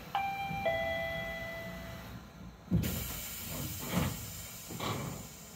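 Chiba Urban Monorail Type 0 at a station stop: a two-note falling door chime rings for about two seconds. Then a hiss of air starts, with three dull thumps as the doors close before departure.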